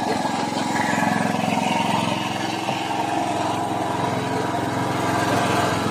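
Outrigger boat's engine running steadily, with water splashing along the hull.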